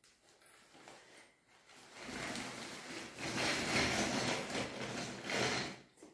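Rustling and scraping from a toddler in a plastic baby walker pulling at a plastic-wrapped diaper pack, loud for about four seconds from about two seconds in, then dying away just before the end.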